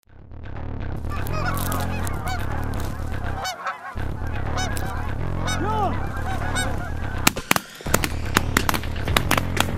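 A flock of Canada geese honking, many calls overlapping. From about seven seconds in, a ragged volley of shotgun shots breaks out among the honks.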